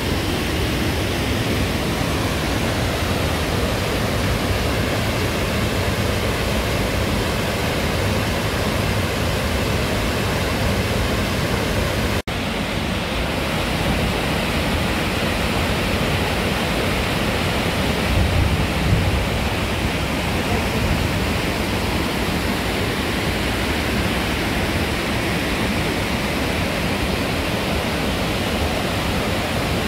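Swollen, muddy mountain river in spate rushing over rocks after rain: a loud, steady rush of water, with a sudden brief dropout about twelve seconds in and a short low swell a few seconds later.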